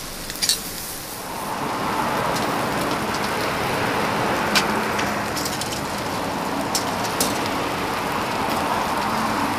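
Semi-dried mackerel sizzling over a charcoal grill: a steady crackling sizzle of fat dripping onto the hot coals, swelling about a second in, with a few sharp pops.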